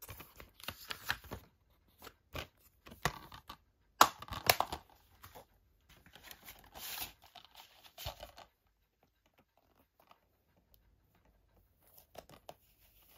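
A plastic Blu-ray case being handled, with clicks and rustles of the plastic. One sharp snap about four seconds in comes as the case is shut. It is mostly quiet over the last few seconds.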